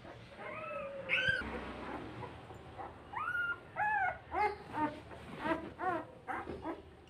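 Newborn puppies, eyes not yet open, whimpering in a string of short, high squeaks that rise and fall, coming more often in the second half, as they search for their mother to nurse.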